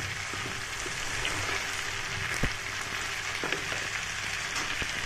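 Potato, chickpea and cauliflower sabzi sizzling steadily as it fries in masala in a pan, with a few light clicks, one sharper about two and a half seconds in.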